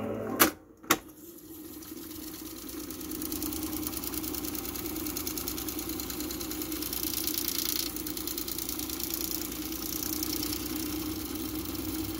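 Sony TC-366 reel-to-reel tape deck: two sharp clicks as its controls are switched and the music stops, then the transport motor and reels running steadily as the tape fast-winds with a continuous whir.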